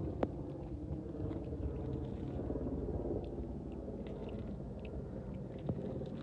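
Steady low rumble on the microphone, with a light click just after the start and another near the end.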